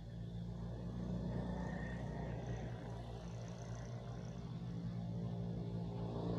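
Steady low engine drone from an unseen motor, slowly growing louder.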